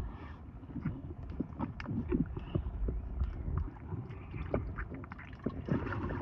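Underwater pool sound picked up by a submerged camera: a low rumble with many irregular small clicks and knocks from water movement and air bubbles, and a brief louder stir near the end.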